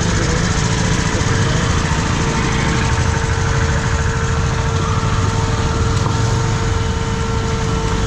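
KTM 250 motorcycle's single-cylinder engine running at a steady speed, its pitch holding even over a steady rush of noise.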